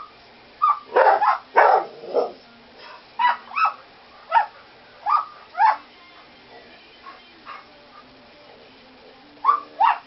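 A pet bird mimicking a small toy dog's bark: a series of short yapping barks, loudest and closest together about a second in, then single barks spaced out, and after a pause of a few seconds, two more near the end.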